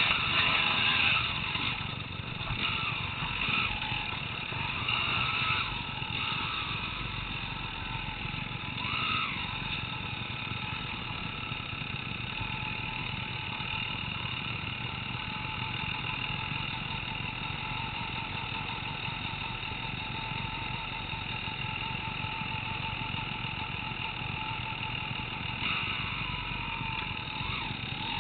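Enduro dirt bike engine under way on a trail, revving up and down several times in the first ten seconds, then running steadier, with a few more revs near the end.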